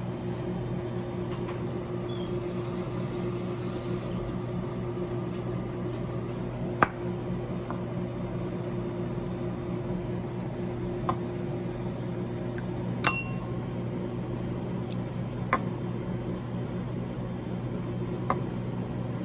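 Steady low hum of kitchen machinery, with about five sharp light clicks and clinks spread through it, the loudest about seven seconds in, as pin bones are pulled from a raw sea bream fillet with bone tweezers.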